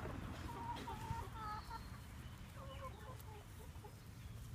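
A flock of chickens clucking while they forage: a run of short, repeated clucks that thins out after about three seconds, over a low background rumble.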